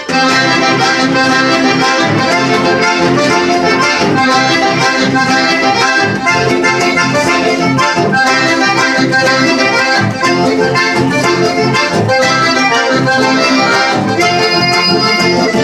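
Accordion playing a traditional tune in a steady, even rhythm without pause.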